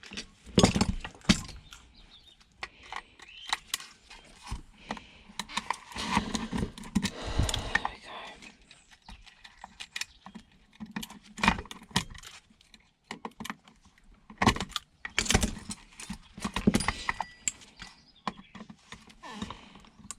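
Irregular clicks, clinks and knocks of hand tools and small metal parts as a Dirt Devil vacuum cleaner is stripped for scrap. There are two denser stretches of scraping and rattling, one about six seconds in and one about fifteen seconds in.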